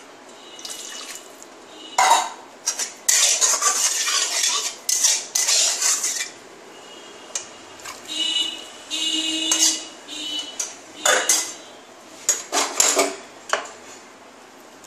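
A metal spoon scraping and clanking against metal cookware in several bursts, the metal ringing briefly. Spice paste thinned with water is being scraped out of a pan and poured into a pot of khichuri, then stirred in.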